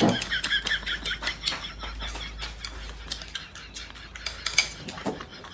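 Chopsticks clicking and scraping against a ceramic bowl in quick, uneven taps as a man eats fast from it, with slurping and chewing.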